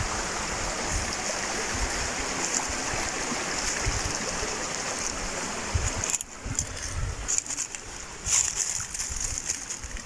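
Steady rush of flowing water from a waterfall stream, which falls away sharply about six seconds in. Scattered short rustles and low thumps follow.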